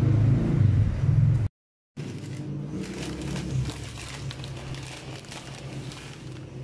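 Water boiling in a stainless steel pot, a steady low rumble with bubbling. The sound cuts out for a moment about a second and a half in, then small clinks and rattles as the glass lid is lifted off.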